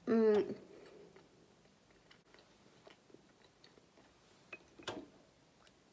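A woman's short, pitched 'hmm' at the start, as if pondering a question, then quiet chewing with small mouth clicks, a few of them louder near the end.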